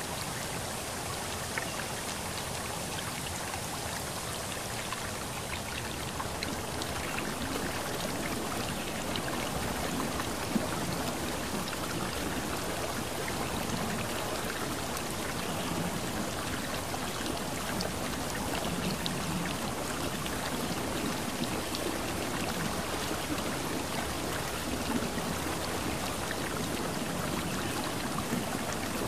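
Steady rushing water noise with a light patter like rain, and one sharp tick about ten seconds in.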